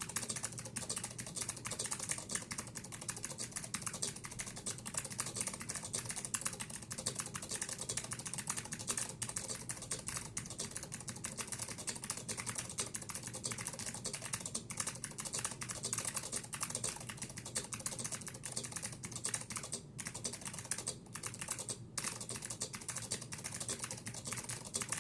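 Leading Edge DC3014 keyboard with blue Alps switches being typed on fast and continuously, a dense stream of clicky keystrokes with a few brief pauses near the end.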